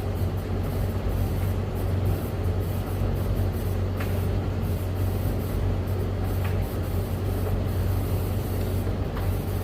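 Beko washing machine running early in a 30-degree wash, with a Hoover tumble dryer running alongside: a steady hum under an even rushing noise. Three faint light clicks come about four, six and a half and nine seconds in.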